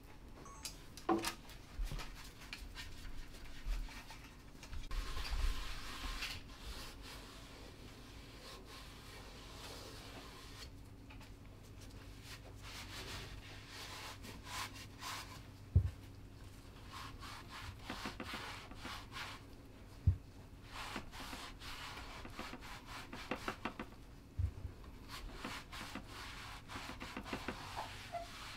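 Cloth and paper rubbing over a lacquered wooden plate as it is wiped by hand, with scattered small clicks. There are two sharp knocks, about 16 and 20 seconds in.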